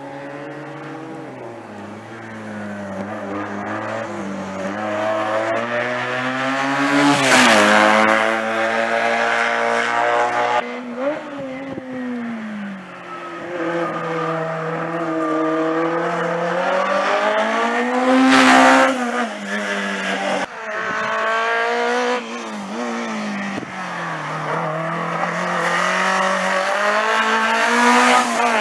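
Racing car engines revved hard through a slalom of cones, the pitch climbing and falling again and again with throttle lifts and gear changes. It is loudest as a car passes close about 7 and 18 seconds in.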